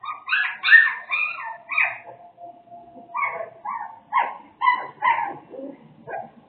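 Young puppies whining and yelping: a quick run of short, high-pitched cries, a pause of about a second, then a second run.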